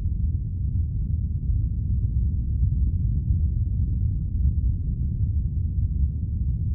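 Simulated earthquake rumble: a deep, steady roar with no distinct tones, standing for the ground shaking of a magnitude 8.7 megathrust quake.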